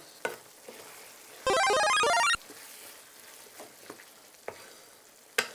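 A short electronic jingle, about a second long, a quick run of bright ringtone-like notes, over the faint sizzle of vegetables and minced meat simmering in a frying pan.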